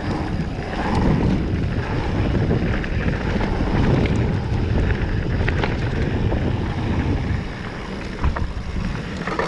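Mountain bike descending fast on a dirt trail: wind buffeting the action-camera microphone over the rumble of tyres on dirt, with scattered clicks and rattles from the bike over bumps.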